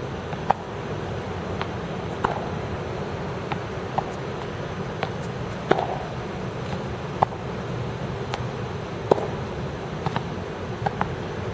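Tennis balls being struck with rackets and bouncing on the court, each a sharp pop, one every second or so, over a steady background hum.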